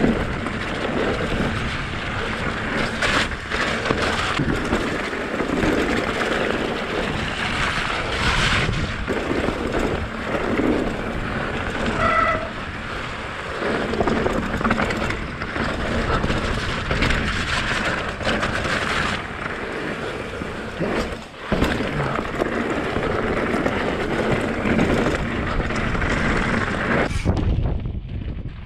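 Mountain bike ridden over rough, muddy trail. Tyre noise, chain and frame rattle, and wind buffeting the GoPro's microphone run together, broken by sharp knocks from bumps. A short squeal sounds about twelve seconds in.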